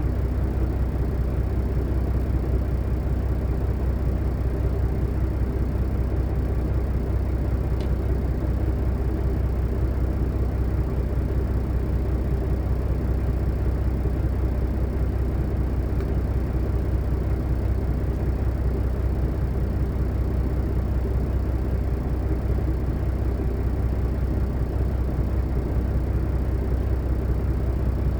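Diesel engine running steadily: an even, low sound with most of its weight in the deep bass, unchanging throughout. One faint tick about eight seconds in.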